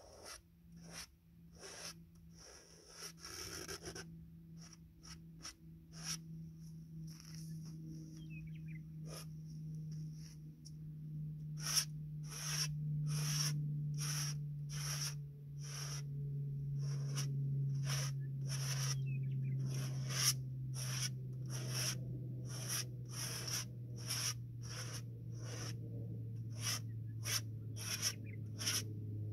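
Short scratchy strokes of oil paint being worked onto a large stretched canvas, one or two a second, getting louder and closer together after about twelve seconds. Underneath runs a low steady drone that slowly falls in pitch.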